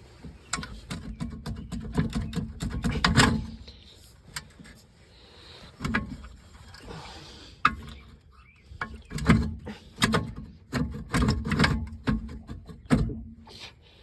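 Metal knocks, clicks and clunks as a new wheel bearing hub assembly is worked into place on a car's rear axle, in two busy spells with a quieter gap between.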